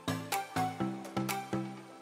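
Background music: a melody of pitched notes, each starting sharply and ringing away, about four notes a second in a steady rhythm.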